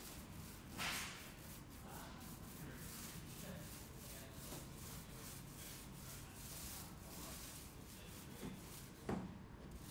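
Paint roller being worked over a wall panel, a repeated rubbing sound, with two brief louder noises about a second in and near the end.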